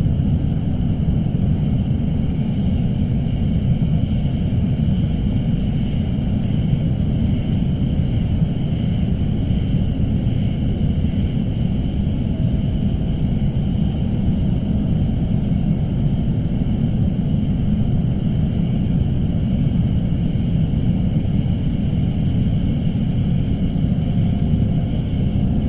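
Suspense ambience sound effect: a steady, unbroken low rumble, with faint sustained high tones above it and a faint rapid high flutter.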